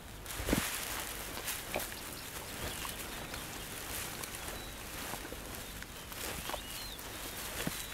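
Outdoor bush ambience: a steady hiss with a few faint bird chirps and scattered small rustles and clicks, like an animal shifting in dry grass.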